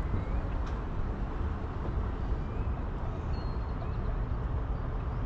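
Steady road and wind rumble from a boat being towed behind a vehicle, heavy in the low end and buffeting. A few faint, short high chirps come through about half a second, two and a half and three and a half seconds in.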